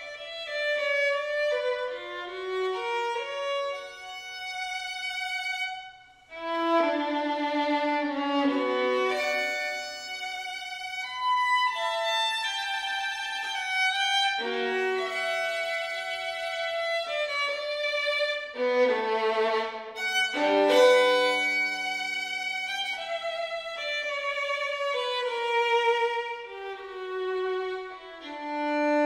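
Background music: a slow melody of held notes, each changing every second or so, with a brief pause about six seconds in.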